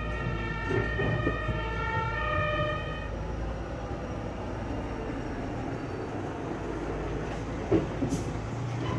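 Fire engine two-tone siren alternating between two pitches, cutting off about three seconds in, then the fire engine's diesel engine running as it moves off. A sharp knock and a short hiss come near the end.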